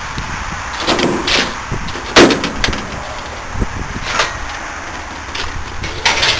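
A handful of sharp knocks and clunks, metal scrap being knocked or handled, the loudest about two seconds in, over a steady outdoor background hiss.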